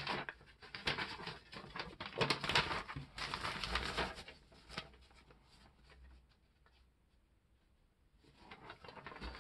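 Rustling and crinkling of a folded sheet of spiral-notebook paper being unfolded and flattened by hand, in a run of bursts over the first four seconds or so. This is followed by a near-silent pause and a little more rustling near the end.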